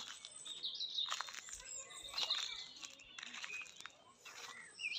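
Small songbirds chirping and twittering: many short, high, wavering calls in quick succession.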